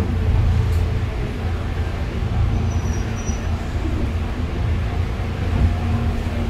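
Steady low rumble of a bus's engine and running noise, heard from inside the bus.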